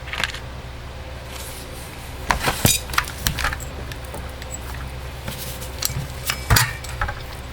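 A few sharp metallic clinks and knocks of hand tools and parts being handled against a chainsaw on the bench, over a steady low hum.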